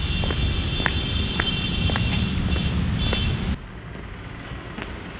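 Footsteps on stone paving, about two steps a second, over a low rumble of wind on the microphone; about three and a half seconds in the sound drops abruptly to a quieter outdoor background.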